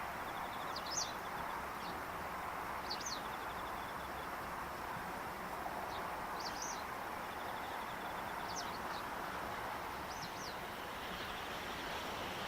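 Small bird chirping, five short high calls spaced about two seconds apart, over a steady outdoor background noise.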